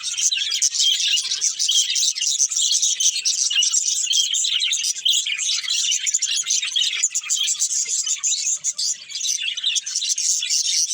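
A group of budgerigars chirping and chattering, a dense stream of rapid high chirps overlapping without pause.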